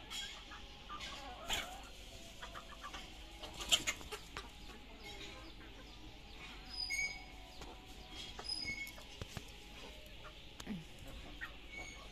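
Scattered, faint clucking of free-ranging village chickens, with a few short high chirps now and then.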